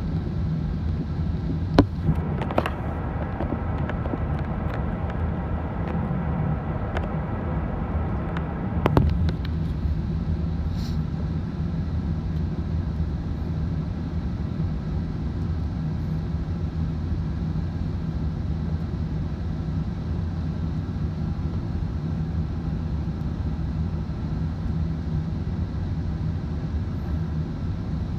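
Steady cabin noise inside an Airbus A380 descending on approach with flaps extended: a constant low rumble of engines and airflow with a steady hum. A few brief knocks sound about two seconds in and again near nine seconds.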